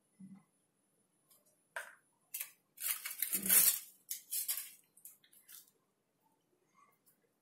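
Handling noises: paper cups rustling and knocking against a ceramic plate and the counter as frozen kulfi is pulled out of its paper cup by the stick. A cluster of short rustles and knocks, loudest midway.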